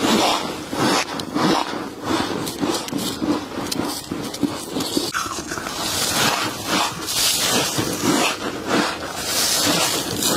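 Close-miked crunching of freezer frost being chewed, a dense run of crisp, crackly crunches with little pause.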